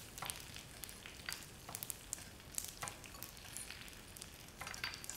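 Chef's knife slicing asparagus on a thick wooden chopping board: a string of soft, irregular taps, about two or three a second, over a faint steady sizzle of oil frying in a pan.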